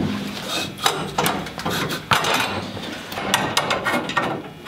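Irregular knocks and clinks of steel and wood, the sharpest about two seconds in, as the steel base frame of the table saw and the wooden blocks under it are handled.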